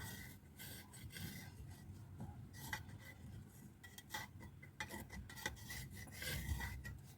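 Faint, irregular rubbing and scraping as rubber paste glue is spread along one side of a speaker being re-edged.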